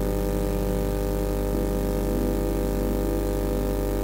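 Steady electrical mains hum with a buzzy stack of overtones, holding at an even level throughout.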